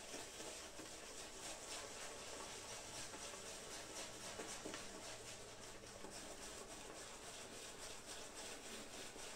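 Synthetic shaving brush face-lathering: faint, soft rubbing and swishing of the bristles working shaving-soap lather over the cheeks and chin, in a quick run of strokes.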